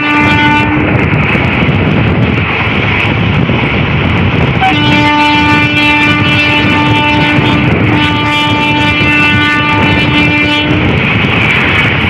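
Passenger train's locomotive horn heard from inside a moving coach over loud wheel-on-rail running noise. One short blast at the start, then a long blast from about five seconds in, broken briefly near eight seconds and ending about eleven seconds in.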